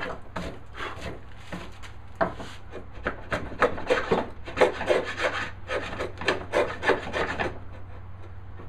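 Hand router plane scraping short strokes across the bottom of a dado in walnut, its blade not as sharp as it could be. The strokes come several a second and stop near the end.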